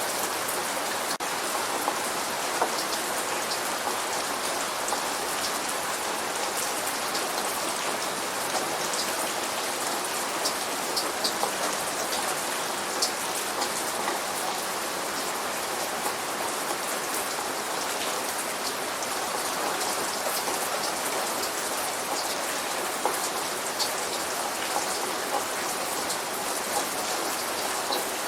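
Steady light rain falling, with scattered individual drops ticking sharply on a surface.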